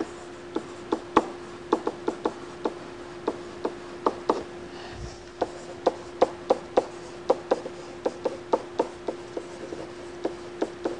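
Stylus tapping and clicking on a tablet screen while words are handwritten: a string of sharp, irregular clicks, about two or three a second, over a steady hum.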